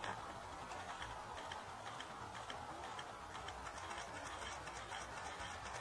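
Camera shutters clicking, single clicks about two a second at first, then quicker runs of clicks in the second half, over a steady low background noise.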